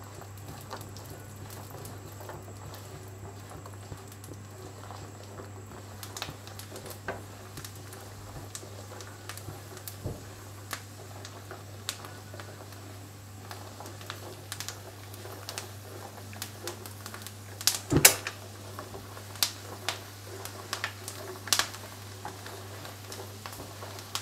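Blanched almonds frying in melted butter in a non-stick frying pan, stirred with a silicone spatula: a light sizzle with scattered sharp pops and clicks that grow more frequent in the second half, the loudest cluster about three-quarters of the way in, over a steady low hum.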